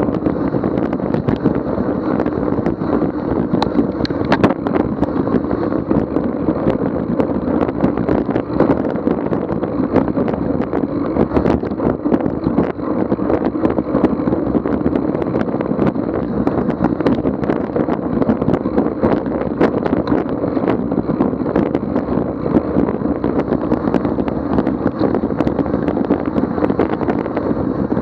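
Continuous riding noise from a fat bike on a snowy trail: wind buffeting the microphone, with many small clicks and rattles throughout.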